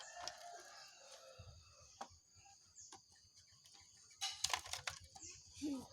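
Faint clucking of domestic chickens, with scattered clicks and a brief louder noise about four seconds in.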